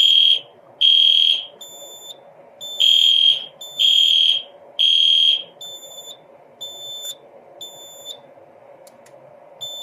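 Fire alarm horns sounding in alarm after a pull station is pulled, a high-pitched pulsed tone at about one blast a second. The blasts are loud through the first half, then go on as thinner, quieter beeps.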